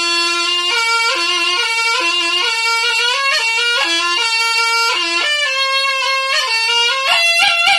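Slompret, the Javanese double-reed shawm of reog, playing a bright, reedy melody. It holds one note for a moment, then runs through quick changing notes without a break.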